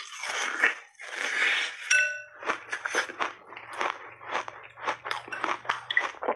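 Frozen block of crunchy berry ice being bitten and chewed: dense crunching, then a single bright ringing clink about two seconds in as the ice knocks against a glass bowl, then a run of quick, sharp crackling crunches.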